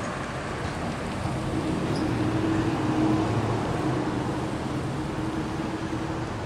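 Street traffic: a vehicle's engine hum over road noise, growing louder toward the middle and then fading as it passes slowly.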